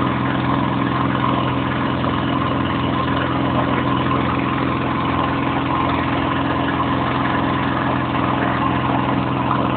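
An engine running at a steady speed, giving a constant even hum with no change in pitch.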